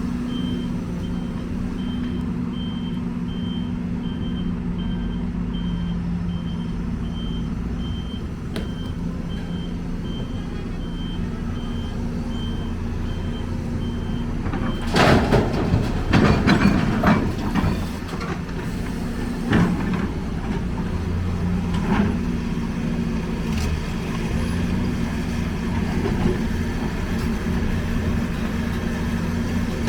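Heavy diesel engines of an excavator and a dump truck running steadily, while a reversing alarm beeps about one and a half times a second and stops about halfway through. Then a few seconds of loud crashing and clattering, followed by a few single bangs.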